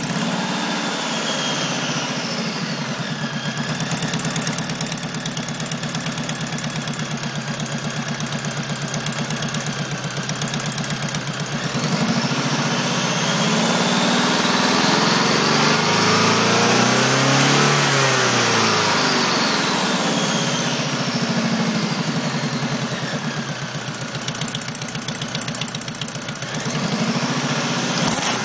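Chevrolet Cobalt SS supercharged 2.0-litre four-cylinder idling just after a cold start, with a weird noise that appeared after new headers were fitted and shows up only at idle. About halfway through, the engine speed rises and then falls back to idle.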